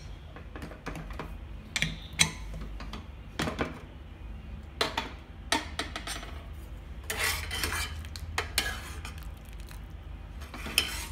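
A metal ladle clinking and scraping against the inside of a pressure cooker pot as the soup is stirred, with irregular sharp knocks and a few busier clusters of scraping.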